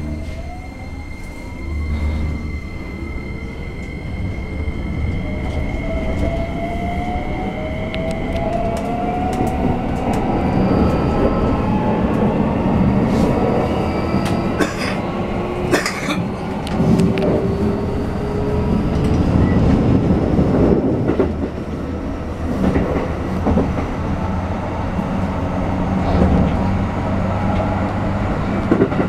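Inside a Keikyu New 1000 series 1890-subseries EMU as it pulls away and accelerates: the Toyo hybrid SiC VVVF inverter and traction motors whine in several thin tones that climb slowly in pitch. Beneath them is the rumble of the wheels, with scattered clacks from rail joints. A steady high tone stops about eight seconds in.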